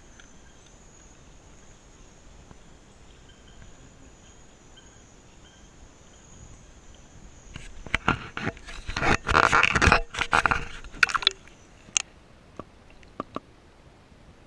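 Steady high-pitched insect chirring in the night air. A little past the middle come about three seconds of loud splashing and scraping as a hand works in shallow water, followed by a few short clicks.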